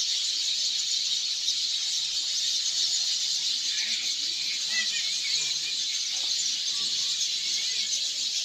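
Steady high-pitched chorus of insects, with a few faint bird chirps near the middle.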